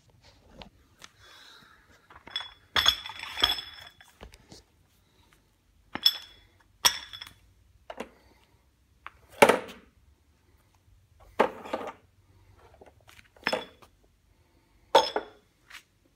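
Steel sledgehammer head clanking and knocking, about ten separate strikes with gaps between them, several with a short metallic ring, as the hammer is handled and stood on a scale.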